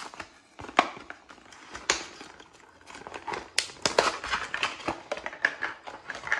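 Plastic blister pack being pulled open by hand, its cardboard backing tearing away: irregular crinkling and crackling of the plastic, with a few sharp snaps.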